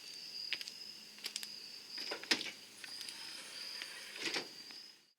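Crickets chirping in a steady high trill, with a few sharp clicks and knocks, the loudest about two seconds in and again near the end.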